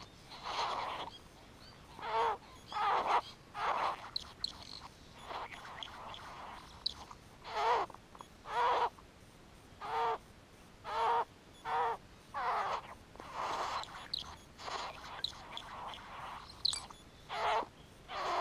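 Male great bowerbird giving harsh, grating display calls during courtship, about one a second, some with a wavering, rattling tone.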